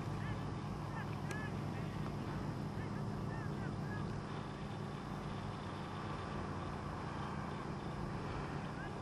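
Outdoor background of a steady low hum with wind noise, and a few faint short high chirps in the first half.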